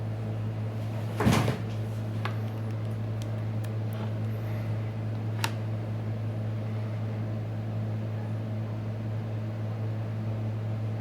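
Steady low electrical hum with a few light clicks and a short louder knock or scrape about a second in, typical of a phone and small tools being handled on a workbench.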